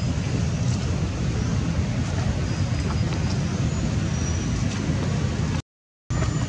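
Wind rumbling steadily on the microphone as a deep, even roar, cutting out completely for about half a second near the end.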